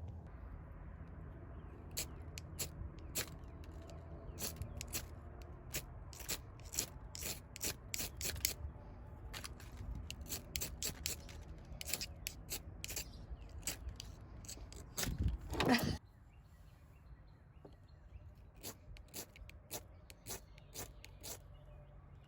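A metal striker scraped along a fire-starter rod in many short, quick strokes, with one longer, louder scrape about fifteen seconds in; the strokes are fainter after that.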